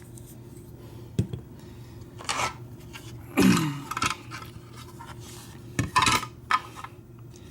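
Small metal clicks and short scrapes from working a Kwikset deadbolt's lock cylinder with tools, as it is turned back and taken apart; half a dozen separate sounds spread over the seconds.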